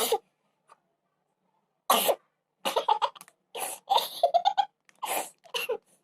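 A woman sneezing and coughing in a quick run of about six sharp bursts, set off by tickling the inside of her nose with a stick.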